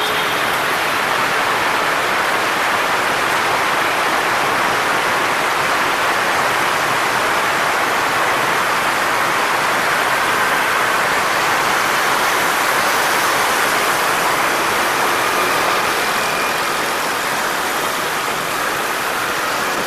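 Steady rush of wind on the microphone of a moving motorbike, over the hum of surrounding motorbike and car traffic.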